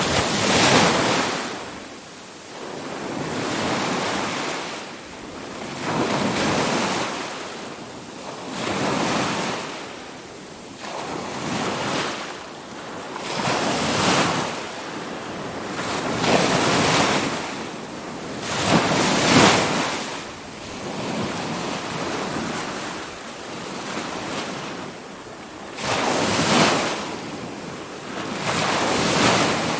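Ocean surf washing in wave after wave, each surge swelling and fading every two to three seconds.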